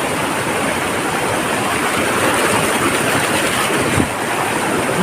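Waterfall rushing in a loud, steady roar of water, running fast and forceful after rain. One brief knock about four seconds in.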